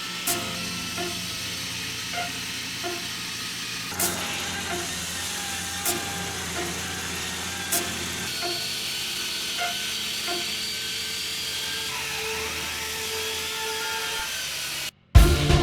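Steady engine-driven machinery running, under soft background music with a regular beat. The sound cuts off abruptly just before the end.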